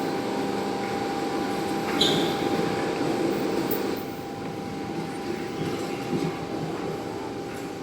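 Komatsu forklift running steadily, a constant whine over the engine's rumble, with a brief sharp sound about two seconds in.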